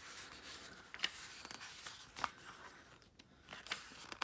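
Paper pages of a small paperback book rustling as they are handled and turned, with a couple of sharper crackles about one and two seconds in.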